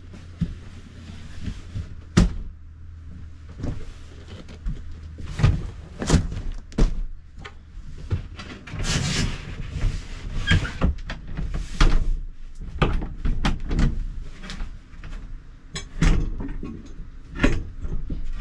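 Irregular knocks and thumps, with a stretch of scraping about nine seconds in, as seat boards, cushions and a laminate table top are lifted and set in place in a small A-frame camper's dinette.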